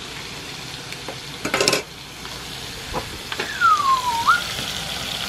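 Meat sizzling in a discada disc (cowboy wok) as it is stirred, with a clatter of a metal utensil against the disc about a second and a half in. Near the end, a whistled note slides down and then quickly back up.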